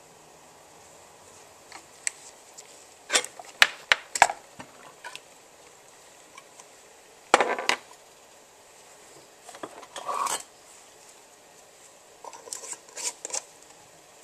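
A glass mason jar and its metal lid and screw band being handled: several short clusters of clinks and knocks as the jar is set down, the lid is placed and the band is screwed on.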